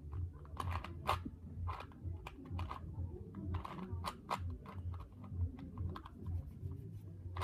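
A plastic Rubik's Cube from the 1980s being twisted by hand: its layers turn in a quick, irregular run of clicks and clacks.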